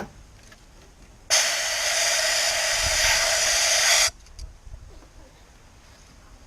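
A burst of compressed air from a blow gun, blowing out an engine's spark plug tubes: a loud, steady hiss about three seconds long that starts a little over a second in and cuts off suddenly. A sharp click just before it.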